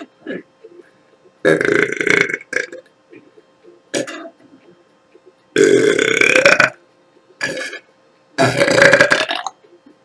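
A woman belching loudly: three long, drawn-out belches of about a second each, spaced a few seconds apart, with a few shorter, quieter sounds between them.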